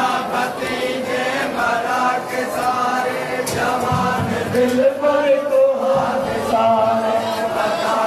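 A group of men chanting a Muharram mourning lament (noha) together, voices holding long sung notes.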